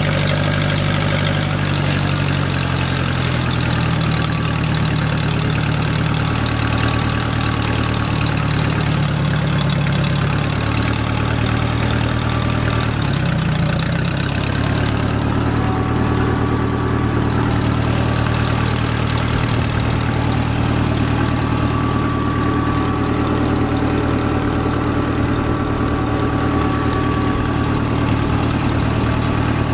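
Case 430 tractor engine running steadily, with a few small rises and falls in pitch in the first half before it settles to an even note.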